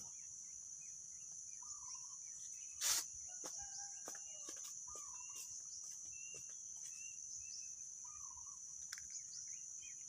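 Rural field ambience: a steady high-pitched insect drone throughout, with a short bird call repeating every couple of seconds and fainter chirps. A single sharp knock comes about three seconds in.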